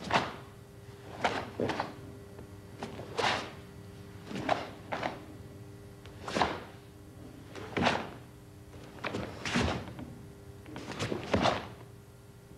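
Karate gi snapping and bare feet thudding on the mat as kata techniques are performed, a sharp crack roughly every second with a few quick doubles.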